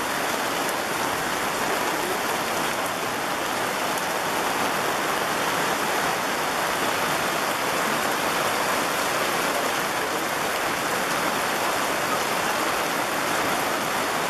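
Heavy rain pouring steadily onto wet cobblestones and the fabric café umbrella overhead, an even hiss without letup.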